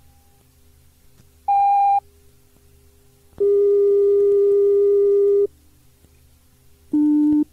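Three steady electronic tones on an old onboard-announcement cassette tape: a short higher beep, then a lower tone held for about two seconds, then a short beep lower still near the end. Between them is only a faint low tape hum.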